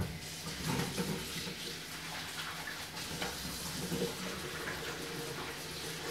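Kitchen tap running steadily into a sink as fresh sorrel (hibiscus calyces) is rinsed by hand under the stream, with a few small knocks against the sink.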